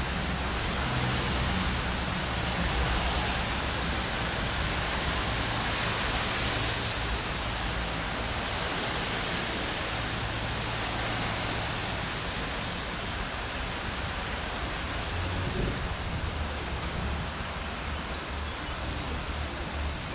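Steady rain falling, an even hiss, over a low steady rumble.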